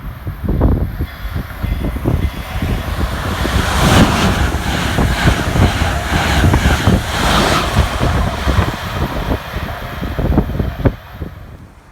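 Amtrak Acela Express train passing at speed, a loud rushing noise with heavy wind buffeting on the microphone; it builds to a peak in the middle and drops away sharply near the end as the train clears.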